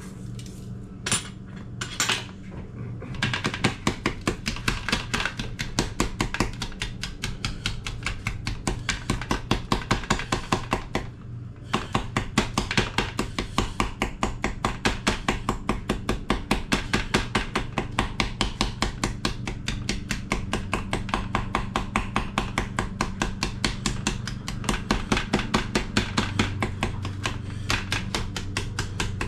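Knife chopping fast on a cutting board, about five even strokes a second, after two single strokes at the start, with a short break about eleven seconds in. A steady low hum runs underneath.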